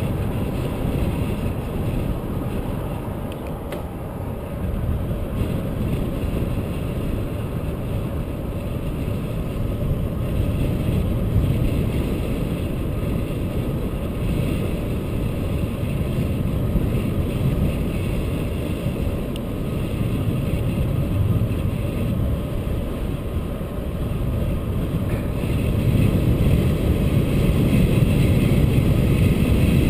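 Wind rumbling on the microphone of a camera riding on a moving bicycle, mixed with road and tyre noise. The rumble grows louder near the end.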